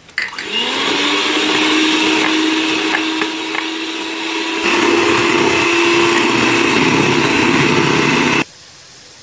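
Electric hand mixer beating eggs and vegetable oil in a bowl: the motor whine rises as it starts, holds steady, gets louder about halfway through, and cuts off suddenly near the end.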